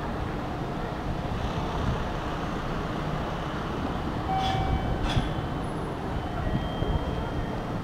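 Steady low rumble of a Shimabara Railway Kiha 2550 diesel railcar idling while stopped at the platform, with two short clicks about halfway through.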